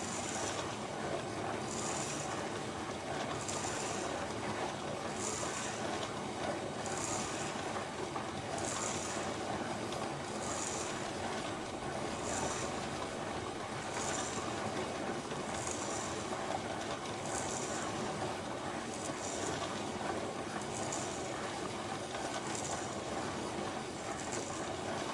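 Cycloid drawing machine running on its integrated 12-volt DC motor: a steady mechanical whirr of turning gears, with a short high hiss repeating about every second and three quarters.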